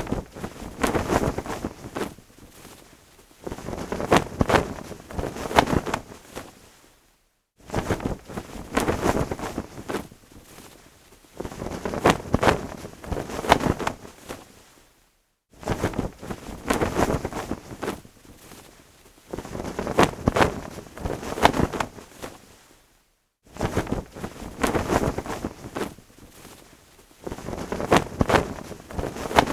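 Cloth flag flapping in gusty wind, with rapid cracking snaps as each gust swells and then dies away. The same stretch of about eight seconds repeats with a brief silence between.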